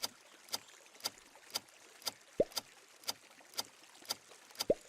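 Countdown ticking sound effect: sharp clock-like ticks about twice a second, with a deeper thud that drops in pitch twice.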